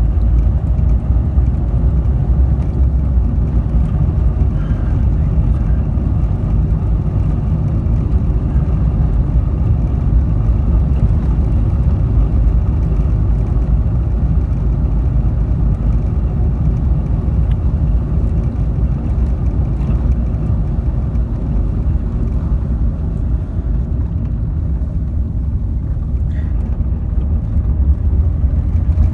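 Car driving along, a steady low rumble of engine and road noise with no break.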